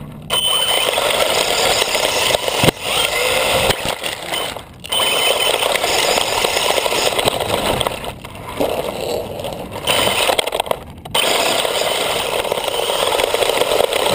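RC car driving over loose wood chips, its chassis and wheels scraping and crunching through the chips, in spurts broken by short pauses about five, eight and eleven seconds in.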